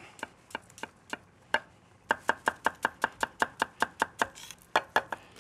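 Chef's knife chopping on a wooden cutting board: a few separate knocks at first, then, about two seconds in, a quick even run of chops at about five a second, ending with a few more knocks.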